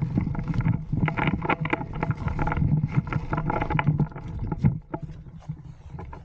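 Handling noise on a body-worn camera as an airsoft player moves with his rifle: gear and clothing rubbing, with many irregular clicks and knocks over a rough rumble. It gets quieter about five seconds in.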